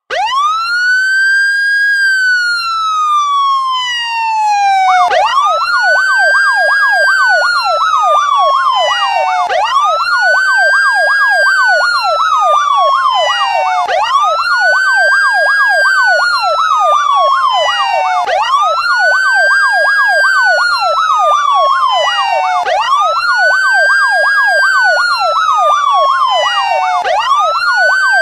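Police siren wailing: each cycle rises quickly and falls slowly, repeating about every four and a half seconds. About five seconds in, a fast up-and-down yelp joins and runs alongside the wail.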